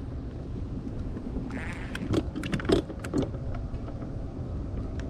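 Steady low hum of a boat's electric trolling motor running, with a few light clicks and knocks from handling a baitcasting reel about two to three seconds in.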